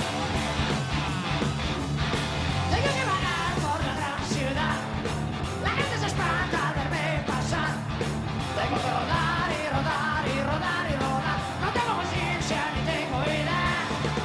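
Live rock band playing loudly: drum kit, bass and electric guitars, with yelled singing over the top.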